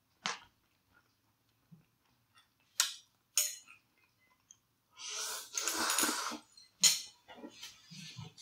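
A person eating thin noodles: a few short sharp mouth and chopstick sounds, then a long noisy slurp of about a second and a half past the middle, followed by a sharp smack and softer chewing.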